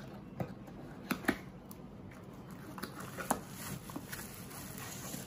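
Cardboard packaging being opened by hand: the inner tray slides out of its sleeve and the bubble-wrapped contents are handled. There are scattered light clicks and taps, then a soft rustling near the end.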